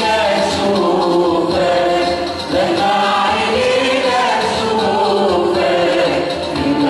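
Choir singing an Arabic Christian hymn in unison with musical accompaniment.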